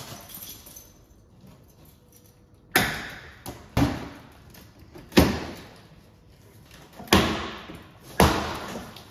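Cardboard box being torn open by hand, its flaps pulled up and its packing-tape seams ripped: five sudden rips and thumps about a second or two apart, each fading within a second.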